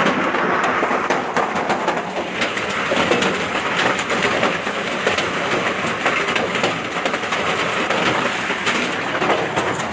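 Hailstorm: a dense, steady clatter of hailstones striking hard surfaces, many sharp hits in a constant roar with no let-up.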